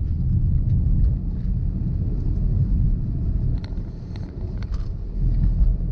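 Steady low rumble of a vehicle driving along a road, engine and tyre noise, with a few faint ticks about midway.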